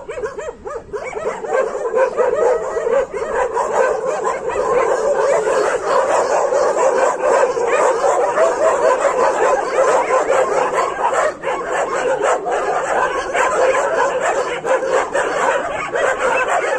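Dogs barking and yelping at a Himalayan black bear, rapid and nearly nonstop from about a second in.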